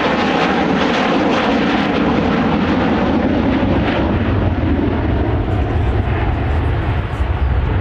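Avro Vulcan B2's four Olympus turbojets at full display power in a low pass, a loud, continuous jet roar. About halfway through, as the bomber banks away with its exhausts toward the listener, the sound turns deeper into a heavy rumble.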